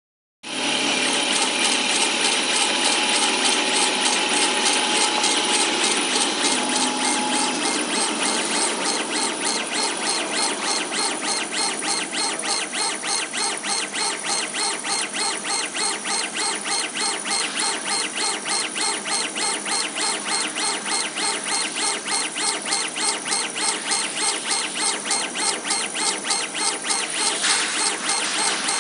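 CO2 laser engraving machine running, its laser head sweeping rapidly back and forth across the bed, over a steady mechanical whir and hiss. From about eight seconds in, a fast even rhythm of about four strokes a second comes through from the head's back-and-forth passes.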